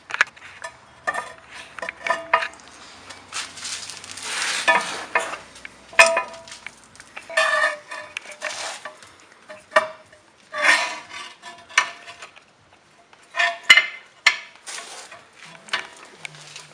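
Metal utensils clinking and scraping against pots and pans, irregular clatter with several sharp clinks.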